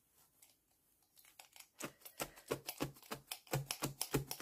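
Multi-needle felting tool stabbing wool through the hessian side of a felting mat: a quick run of sharp taps with a soft thud under each, starting about a second in and settling to about five stabs a second.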